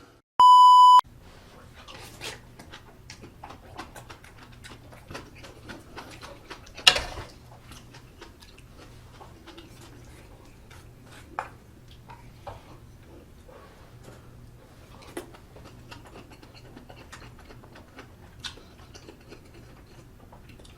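A loud half-second electronic beep, then the small clicks and taps of utensils and chewing while budae jjigae is eaten, with a sharper knock about seven seconds in.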